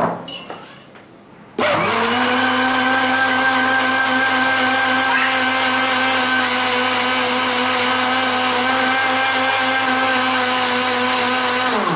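Electric kitchen blender running, blending mint leaves, green chili and ginger with water. After a short knock at the very start, the motor switches on about a second and a half in, runs at a steady pitch, and winds down as it is switched off near the end.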